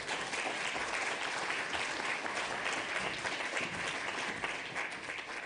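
Audience applauding: dense, steady clapping that starts to fade near the end.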